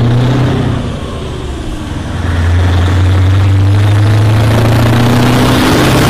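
Tractor-trailer truck's engine running as the lorry drives past, a steady low drone that grows louder about two seconds in.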